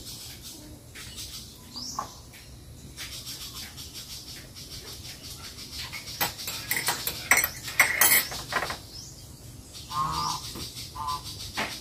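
A metal spoon stirring coffee in a ceramic mug, clinking quickly against the sides for a couple of seconds. A short low hum-like sound follows near the end.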